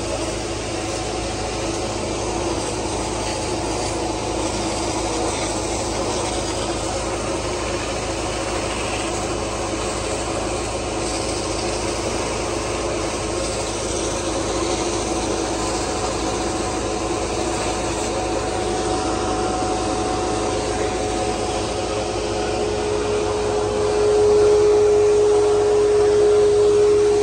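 Sewer vacuum truck running steadily, its suction hose drawing water out of a manhole while a hose sprays water into it. A steady hum grows louder about three-quarters of the way through.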